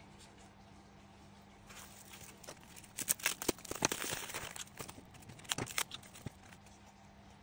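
Paper and plastic wrapping crinkling and rustling in the hands as a wrapped plant cutting is unwrapped. The crackling starts about two seconds in, is loudest in the middle and stops about six seconds in.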